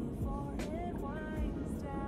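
Background music carrying a gliding melodic line over a steady low rumble.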